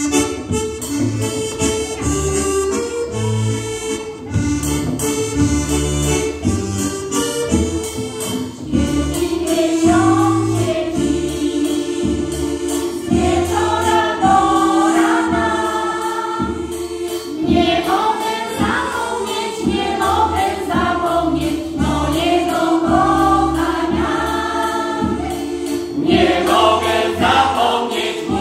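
Polish folk ensemble performing live: accordion with a steady drum beat plays an introduction, then about nine seconds in a choir of singers joins in with a folk song over the accordion and drum.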